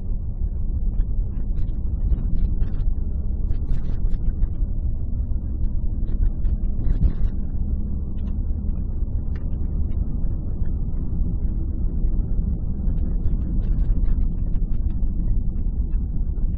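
Car driving on a winding road, heard from inside the cabin: a steady low hum of engine and tyre noise with small scattered ticks and rattles.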